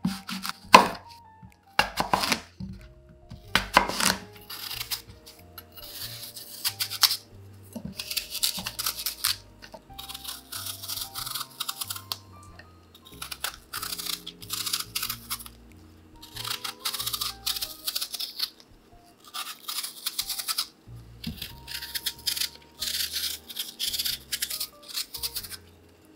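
A knife cutting through a whole apple down onto a wooden cutting board, three sharp cuts in the first four seconds, then a small knife peeling the skin off apple wedges in repeated rasping strokes, each about a second long. Soft background music plays underneath.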